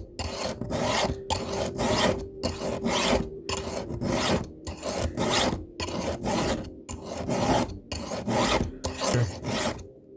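Round chainsaw file rasping across a chain's cutter tooth in steady repeated strokes, about two a second, while the tooth is sharpened under its top plate. The strokes stop just before the end.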